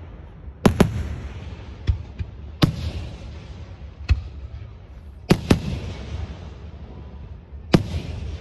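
Aerial firework shells bursting in a public display: about eight sharp booms, a few in quick pairs, each followed by a rolling low rumble.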